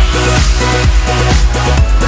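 Electronic dance background music with a steady beat, kicking back in after a short sweeping build.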